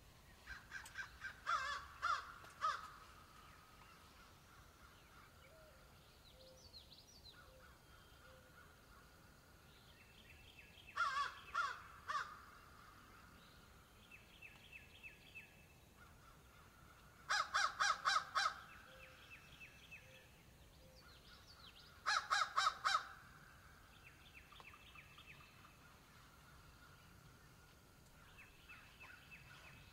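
Crows cawing in short series of harsh calls, four bursts of several caws each, over a faint steady background of distant bird or insect song.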